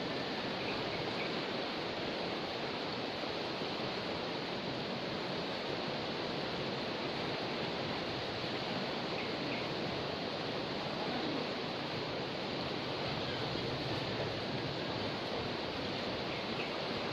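River water rushing steadily, a swollen river running high after a flood.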